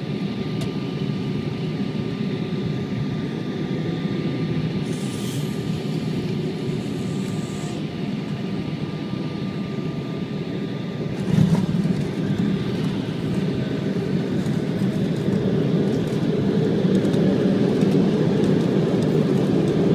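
Jet airliner cabin noise during landing: a steady rumble of engines and airflow. A sudden jolt about eleven seconds in as the wheels touch down, then a louder rushing rumble from about sixteen seconds on as the jet rolls out on the runway with its spoilers raised.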